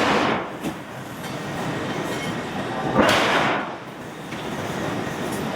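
Hydraulic forging hammer striking a hot steel billet: two heavy blows about three seconds apart, one right at the start and one about three seconds in, each with a rushing noise that dies away within a second, over steady shop noise.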